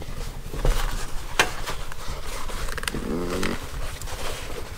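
Leather welding gloves with fabric cuffs being handled and folded in the hands, rustling with scattered sharp clicks. About three seconds in, a man gives a brief hum.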